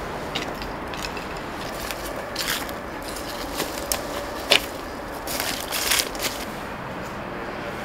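Dry leaves and plant foliage rustling and crackling, with a few light knocks, as potted plants in plastic pots are handled and set down on leaf-strewn ground. The sharpest click comes about four and a half seconds in, and a run of rustling follows a second later.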